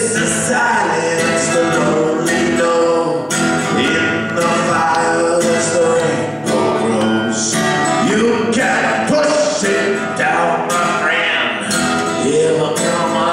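A live song: acoustic guitar strummed under singing voices.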